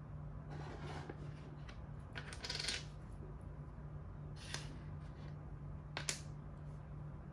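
Makruk (Thai chess) pieces clacking and scraping on the board as they are picked up and set down: a few short clicks and scrapes, the loudest about two and a half seconds in and a sharp click about six seconds in.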